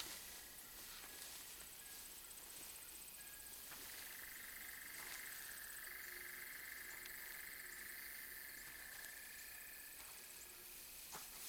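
Faint, steady chorus of insects: a high buzz that swells about four seconds in and eases near the end, over a fast, higher chirping, with a few soft ticks.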